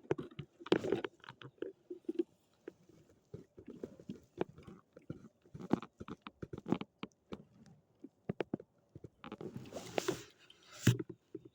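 Close handling noise: irregular clicks, taps and rustles, with a longer hissing rustle about nine seconds in and a sharp click just after it.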